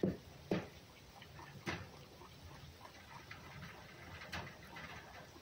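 A fox eating from a plate: faint small eating sounds with a few scattered sharp clicks.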